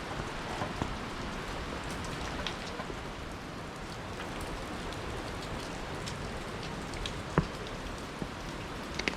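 Meltwater dripping and small bits of ice pattering down from a wall of melting icicles, over a steady hiss of falling water, with one sharper knock about seven seconds in.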